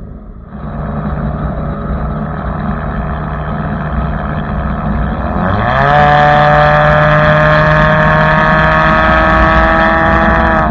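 Kia Optima engine and straight-through exhaust, muffler and resonator deleted, running at a steady engine speed. About five and a half seconds in it rises in pitch and then holds a louder, higher steady drone.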